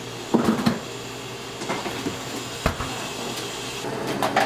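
Cafe drink-making handling sounds: several sharp clinks and knocks of glassware, ice and a metal-capped shaker over a steady background hum, with a cluster of clinks about half a second in, a single sharp knock past the middle, and more clinks near the end.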